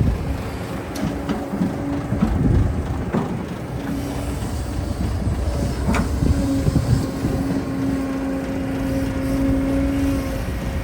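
Heavy construction machinery engine running under load, with a steady whine and a low rumble that rises and falls, and a few sharp metallic knocks about one, three and six seconds in.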